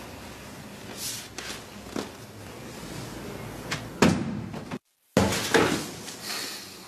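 Knocks and bumps of small objects being handled and set down, the loudest about four seconds in. After a brief dropout comes a burst of rustling clatter.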